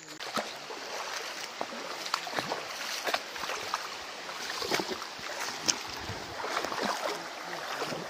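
Water of a shallow, stony stream rushing and splashing, with many irregular small splashes and knocks.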